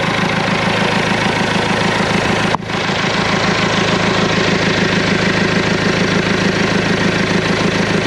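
Caterpillar 416C backhoe's four-cylinder diesel engine idling steadily after a fuel filter assembly change, running without fuel leaks. There is a brief break in the sound about two and a half seconds in.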